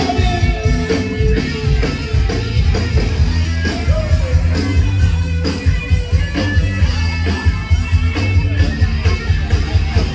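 Live band playing rock-style music with a steady drum beat and heavy bass, with a voice singing in places.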